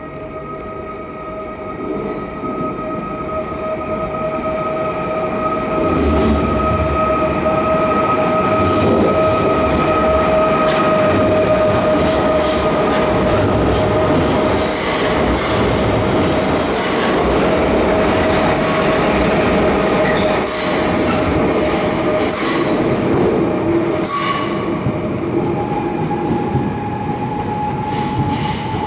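PESA Elf (EN76) electric multiple unit pulling out of an underground station and passing close, growing louder over the first few seconds, with a steady whine. From about halfway through, its wheels click and clatter over rail joints and points, with some squeal. The sound echoes off the underground platform.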